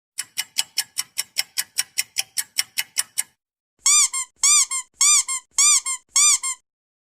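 Sound effects: a quick run of about sixteen sharp clicks, roughly five a second, then after a short gap five high squeaks that rise and fall in pitch, each followed by a shorter, fainter squeak.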